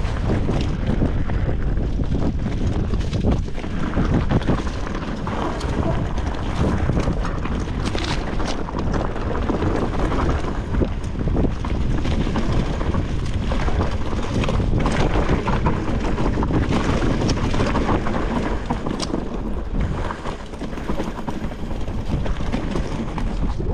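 Titanium hardtail mountain bike riding fast down dirt singletrack: wind rushing over the camera's microphone and the tyres rolling on the dirt, with frequent clicks and knocks as the bike rattles over bumps.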